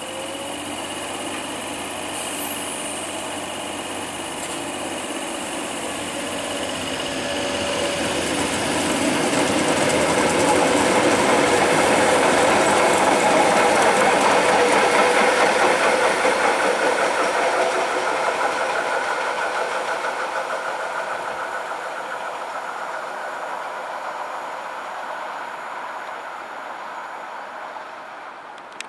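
Tyne and Wear Metro train (Metrocar) running along the track, growing louder to a peak about halfway through and then fading steadily as it moves away.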